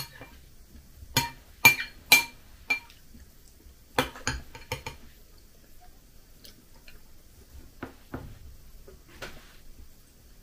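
Metal spoon clinking against a glass bowl of cereal and milk: a run of sharp, briefly ringing clinks in the first five seconds, then a few fainter taps.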